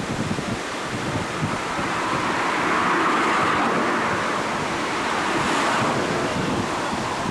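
Rushing water of tidal rapids, with wind buffeting the microphone. The rush of water grows somewhat louder about two seconds in.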